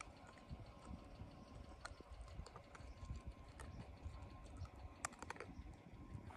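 Near silence: faint outdoor ambience with a low, uneven rumble and a few soft scattered clicks, including a close pair about five seconds in.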